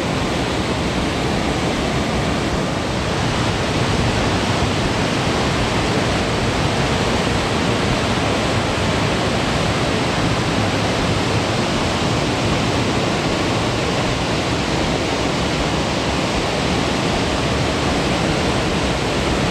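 Burney Falls, a 129-foot waterfall, pouring steadily: an even, unbroken rush of falling water.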